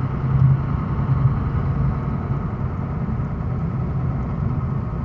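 Steady drone of a Scania snow plow truck's diesel engine and road noise, heard inside the cab while driving at about 30 km/h. A low hum is strongest for the first second or so, then eases into an even rumble.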